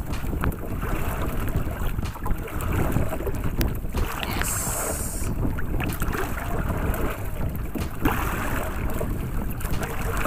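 Wind buffeting the microphone over choppy sea around a small outrigger fishing boat: a steady low rumbling noise with light knocks. A short high hiss comes about four and a half seconds in.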